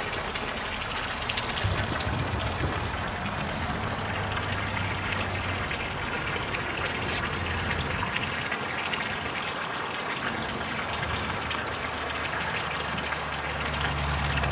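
Water from a garden hose pouring steadily into a partly filled swimming pool, the stream splashing onto the water's surface.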